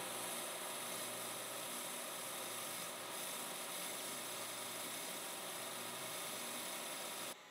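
Metal lathe running while a tool bit takes a light cut on a spinning metal part: a faint, steady hiss over a low hum. The sound cuts off abruptly near the end.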